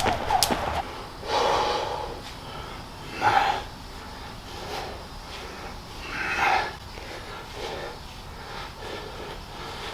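A person breathing out hard in separate bursts every two to three seconds, with softer breaths in between: the effortful breathing of someone lifting weights.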